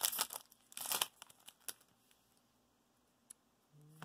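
Foil wrapper of a Magic: The Gathering booster pack being torn open and crinkled by hand, in two bursts within the first second or so, then a couple of faint clicks.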